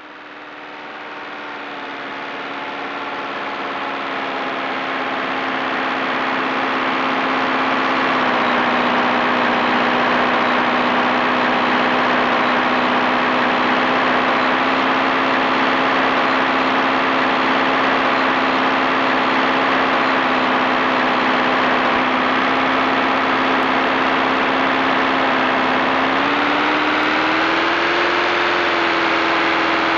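Propeller aircraft piston engine running with a steady drone. It swells in over the first few seconds, drops slightly in pitch about 8 seconds in, then rises in pitch near the end as the throttle opens.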